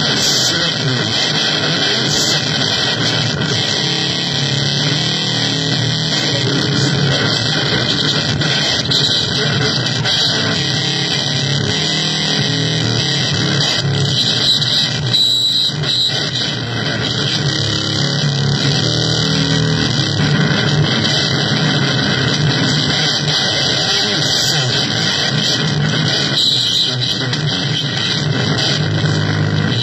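Noise music: a loud, dense, unbroken wall of distorted electronic sound from keyboard and drum machine.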